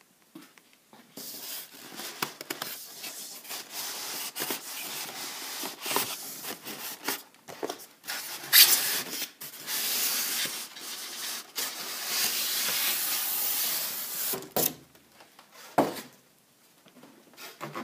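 Styrofoam packing rubbing and scraping against a cardboard box as it is handled: a long scratchy, hissing rub broken by a few sharp knocks, ending with two louder knocks near the end.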